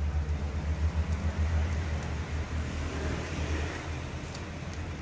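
Steady low engine-like hum, as from a motor vehicle running nearby, easing off about four seconds in, with a few faint clicks.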